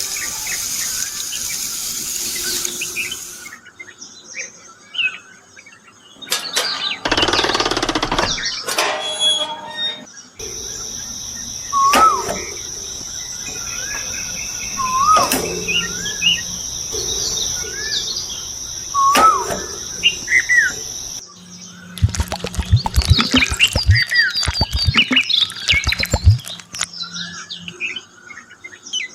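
Bird chirps in several short cut-together segments. In the middle one, a short curling call repeats every few seconds over a steady high whine; near the end come many quick clicks and chirps.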